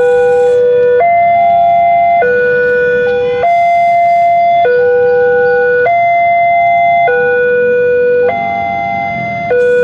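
Railway level-crossing warning alarm sounding: an electronic two-tone signal alternating between a lower and a higher note, each held a little over a second, repeating steadily.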